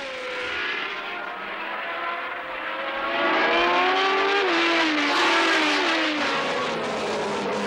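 1970s Formula One cars racing past at full speed, their engines at high revs with the pitch gliding up and down as they pass and change gear. The sound gets louder about three seconds in as the pack goes by.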